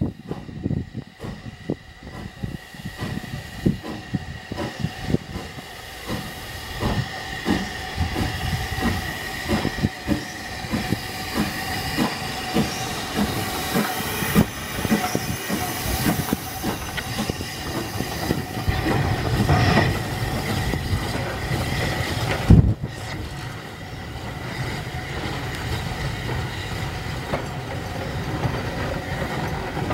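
Double-headed steam train passing at close range, one engine being Southern Railway Q class 0-6-0 No. 30541. The locomotives chuff as they work past over a steady hiss, then the coaches roll by with wheels clattering over the rail joints. One sharp loud thump about 22 seconds in.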